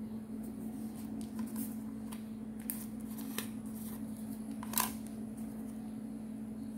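Origami paper being folded in half and creased by hand on a cutting mat: a few short crinkles and clicks of paper, the loudest near the end, over a steady low hum.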